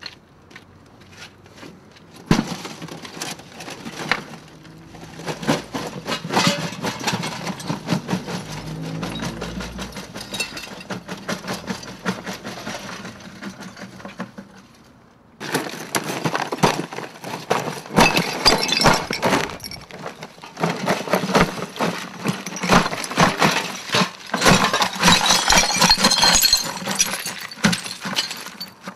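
Rubble of bricks and debris clattering and crashing out of a tipped barrel onto pavement, a long stream of knocks and breaking sounds. It fades off a little past halfway, then starts again suddenly and louder.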